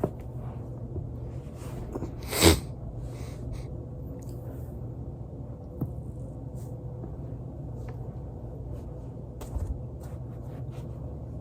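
A person's back cracking on a foam roller: one loud pop about two and a half seconds in, then a fainter click and a dull low thump later, over a steady low hum.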